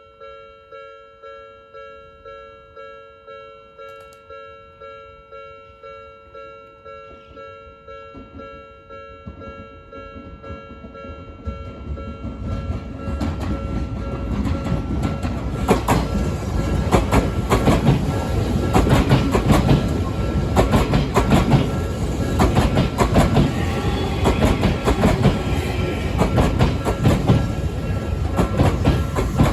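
Japanese level-crossing alarm ringing in a steady repeated ding, about one and a half strikes a second. From about halfway through, a train comes up and passes over the crossing, getting louder, its wheels clacking over the rail joints while the alarm keeps ringing underneath.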